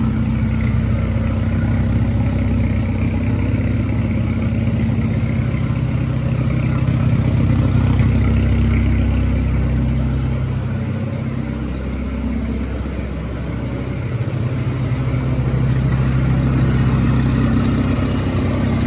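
Gleaner E combine's engine idling steadily with its exhaust leaks freshly repaired, the exhaust now sounding tight. The level sags a little about two-thirds of the way through, then comes back.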